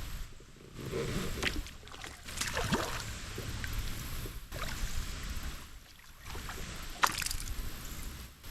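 Water sloshing and splashing around a kayak on a creek, with sharper splashes about a second in, near three seconds and about seven seconds in, over a steady low rumble.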